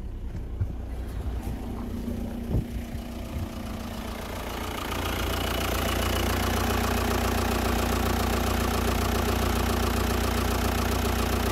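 Audi 2.0 TDI (BRE) four-cylinder diesel engine idling steadily at about 1000 rpm. At first it is heard muffled from inside the cabin. About four seconds in it becomes louder and brighter, heard close up in the open engine bay.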